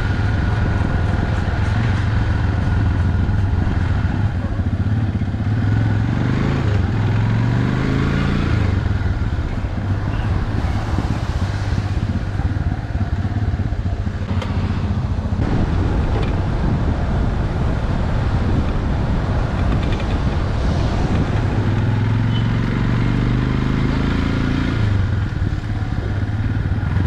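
A vehicle's engine running on the move. Its pitch climbs as it speeds up, once about a quarter of the way in and again near the end.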